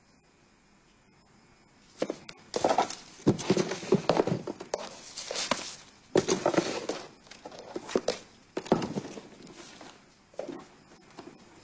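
Hands rummaging through a cardboard box, objects inside knocking, thudding and rustling as they are pushed around, starting about two seconds in.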